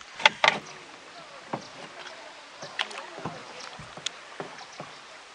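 Canoe being paddled on a river: water splashing and dripping off the paddle, with scattered small knocks. Two sharp knocks stand out about half a second in.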